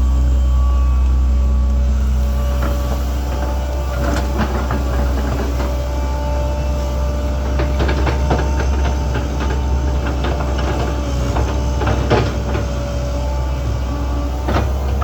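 Link-Belt 2700 excavator working: the diesel engine drones steadily under a constant whine. From about two seconds in until near the end, scattered knocks and clatter come through, the bucket striking and scraping soil and stones.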